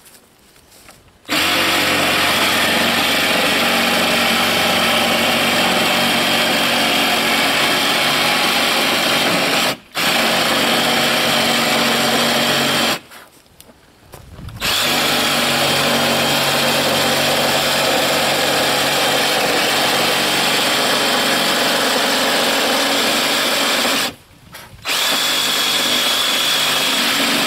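Handheld cordless power tool running steadily on a sheet of OSB in three long runs, with a brief drop about ten seconds in and two short stops in between.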